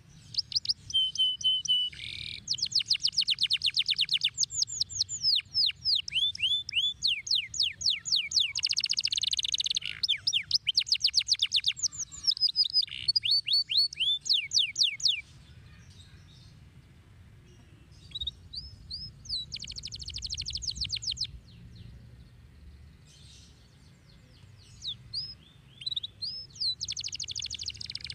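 Domestic canary singing: long runs of fast-repeated, downward-sweeping notes and rolling trills, then a pause about halfway through and shorter trilled phrases after it.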